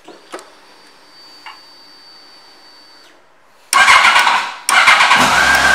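Yamaha FJR1300 inline-four being started: two small clicks of the ignition key and a faint steady high whine with the ignition on, then near the end the starter cranks for about a second and the engine catches and settles into a steady idle.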